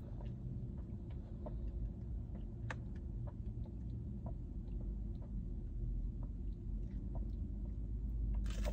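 A chocolate milkshake being sipped through a straw, heard as faint scattered small clicks and ticks over a steady low hum inside the car cabin.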